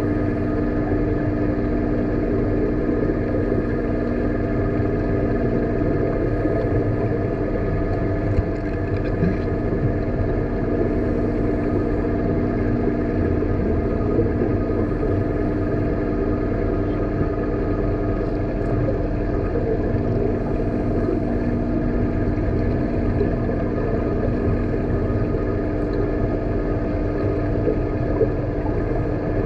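Steady machinery hum with several held droning tones over a low rumble, unchanging throughout.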